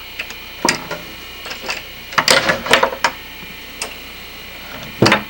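Several sharp knocks and clicks of a barn door and its latch being handled and pulled open. The loudest knock comes near the end.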